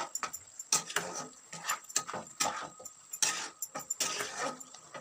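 A spatula stirring and scraping through a thick bean and potato curry in a nonstick pan, a run of short, irregular strokes.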